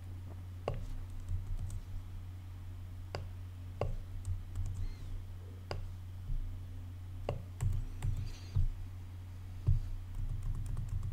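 Sparse, irregular keystrokes and clicks from a computer keyboard and mouse while code is edited, with short pauses between them, over a steady low hum.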